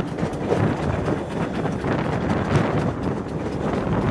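Wind buffeting a microphone held out of a moving train's window, over the steady rumble of the carriages running along the track.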